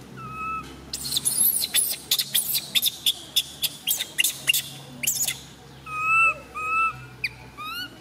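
Baby long-tailed macaque crying: a short high coo, then about four seconds of rapid, shrill screams, then two more drawn-out coos that rise and fall.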